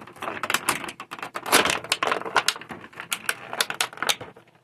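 Clear plastic action-figure packaging tray crackling as the figure is worked out of it: a dense run of sharp, irregular clicks that thins out near the end.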